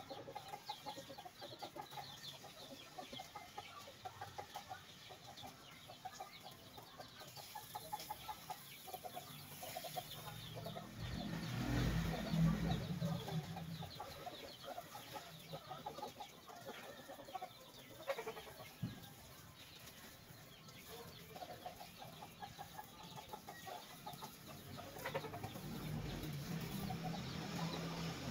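Chickens clucking on and off, with a low rumble that swells and fades about halfway through and again near the end.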